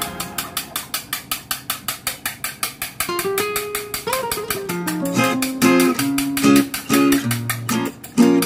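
Background music: a fast, steady ticking beat, joined about three seconds in by a plucked-string melody.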